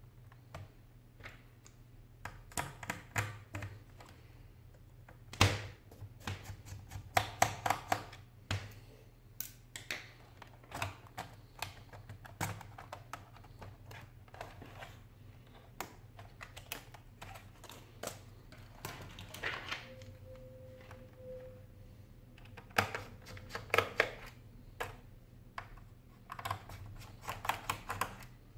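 Sharp plastic clicks, snaps and taps as an HP ProBook 4720s laptop's keyboard is lifted out of its clips and handled, coming in irregular clusters with one loud snap about five seconds in.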